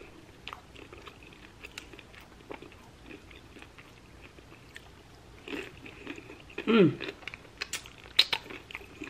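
A mouthful of tortilla chip and buffalo chicken dip being bitten and chewed, with soft crunches and wet mouth clicks. About two-thirds of the way through there is a short falling hum from the eater's voice.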